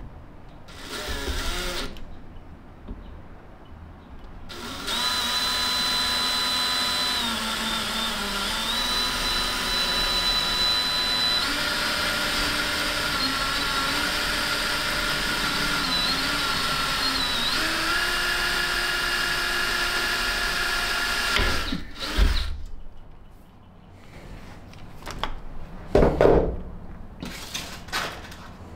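Electric drill boring a hole through the metal frame piece of a box-truck pass-through door: a brief burst, then a long steady run with the motor pitch dipping and shifting several times as it bites. A few sharp knocks follow near the end.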